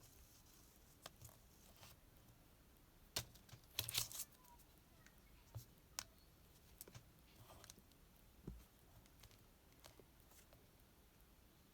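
Small handling noises while working on a Casio F91W watch strap and its pin: scattered light clicks and taps, with a brief cluster of scraping clicks about three to four seconds in.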